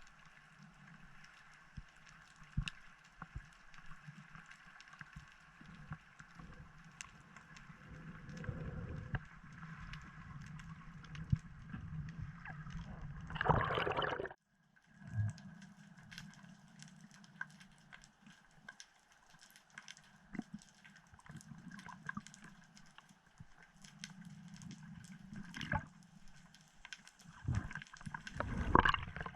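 Muffled water noise picked up by an underwater camera, with a steady low hum and scattered sharp clicks. A loud rush of water comes about halfway through and again near the end.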